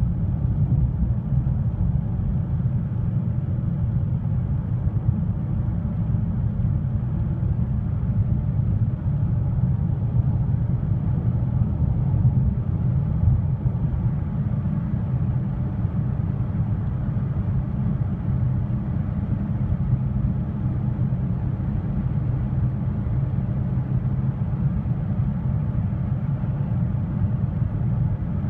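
Steady low rumble inside a Lada Vesta's cabin cruising at highway speed, about 100 km/h: engine and road noise at an even pitch, with no gear change heard.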